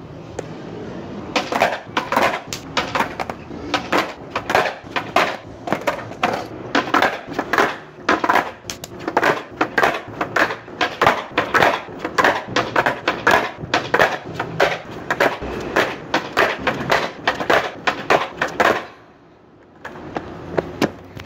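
Skateboard clattering on stone paving during beginner trick attempts: rapid, irregular clacks and knocks of the deck and wheels hitting the ground, several a second, stopping near the end.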